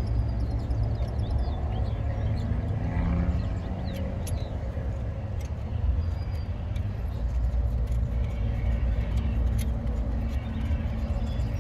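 Steady low rumble of road traffic, with a few light metallic clicks as the fuel-line fitting is worked by hand onto the diesel injector.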